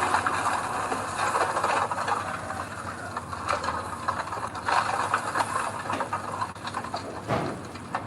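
Soil and stones sliding out of a dump truck's tipped bed: a steady scraping hiss with many scattered rattles and knocks, and a sharper knock about seven seconds in.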